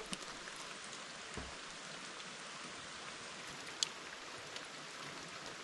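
Steady rain falling, an even hiss with scattered small drop ticks and one sharper tick just under four seconds in.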